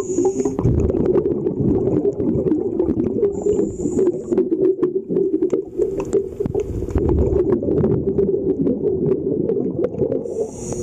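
Muffled underwater sound of a scuba diver's regulator: short hisses of inhaled air near the start, about four seconds in and near the end, over a continuous bubbling rumble of exhaled air, with many scattered clicks.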